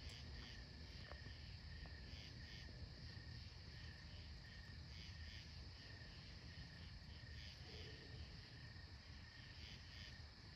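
Faint chorus of insects: a steady high trill, with short chirps repeating irregularly above it, over a low background rumble.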